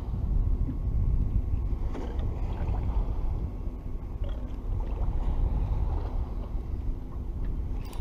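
Wind buffeting the microphone on open water: a steady, gusting low rumble.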